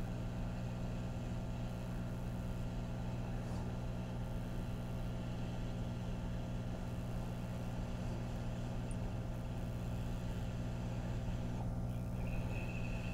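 Hot air rework station (AOYUE 98A+) running with a steady hum, its nozzle blowing hot air onto a surface-mount MOSFET to reflow the solder on its legs.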